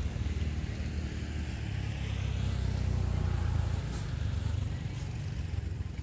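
A motor vehicle passing on a nearby road: a low rumble of engine and tyres that swells to its loudest about halfway through and then eases off.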